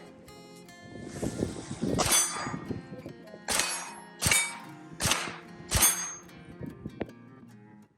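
About five sharp gunshots roughly a second apart, each followed by a metallic ring, typical of rounds striking steel targets, over background music.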